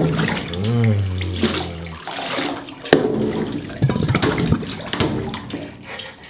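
Water splashing and sloshing in a stainless steel sink as a dog standing in it is rinsed by hand, with water poured from a jug near the end. A short pitched sound rises and falls about a second in.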